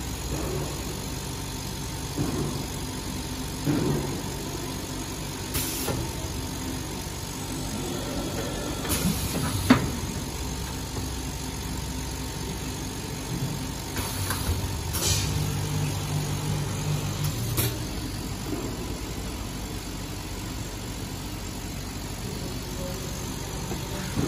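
Semi-automatic single-head vacuum can seaming machine at work: a steady motor hum, with a deeper motor drone for a few seconds past the middle and a few short hisses. Aluminium cans knock on the stainless-steel table, the sharpest knock about ten seconds in.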